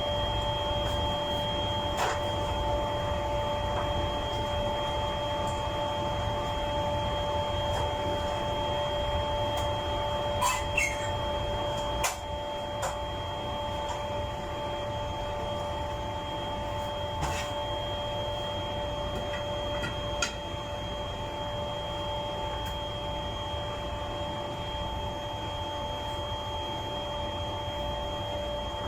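Steady machinery hum with a low rumble and several high steady tones, broken by a few sharp clicks and knocks from work on a light fitting.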